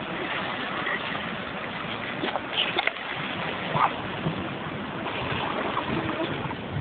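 Steady wash of surf with wind noise, and a few short, sharp sounds between about two and four seconds in.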